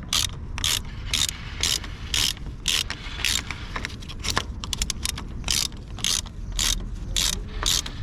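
Hand ratchet clicking as it turns in a motorcycle frame slider bolt: a short run of pawl clicks on each back-swing, about two swings a second, with a quicker run of fine ticks about halfway through.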